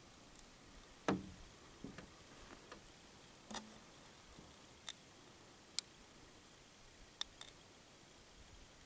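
Scattered small clicks and knocks close to the microphone, a few dull and several sharp and thin, over a faint steady hiss: handling noise from a camera being panned by hand.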